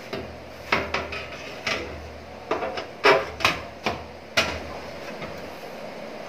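Hard disk drive being handled and fitted into a computer case's drive bay: a series of sharp clicks and knocks, about eight in the first four and a half seconds, then quieter.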